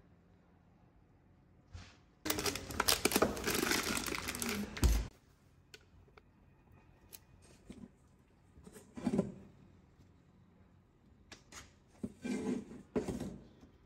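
Kitchen handling sounds: about three seconds of rapid clicking and scraping, a few short knocks, then a shorter burst of the same near the end.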